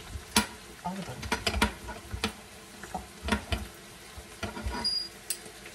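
Kitchen prep sounds: irregular sharp knocks and clicks of utensils, a few a second, over a steady sizzling hiss.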